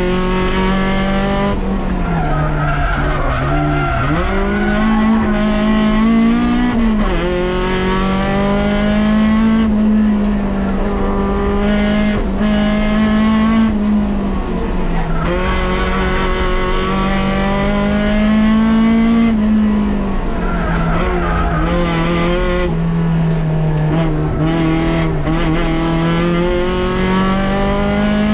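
Toyota AE86 Trueno's engine heard from inside the cabin, revving hard and climbing in pitch again and again, dropping back each time as the driver shifts or lifts for a bend. Tyres squeal briefly a few seconds in and again about three-quarters of the way through.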